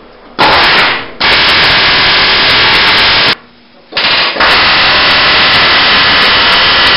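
Pneumatic air chisel hammering on a car's steel frame rail, very loud, cutting the rail free. It runs in bursts: a short one, a longer one, a pause of under a second, then a long steady run.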